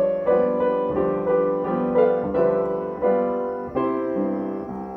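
Piano playing an introduction of repeated chords, struck about three times a second.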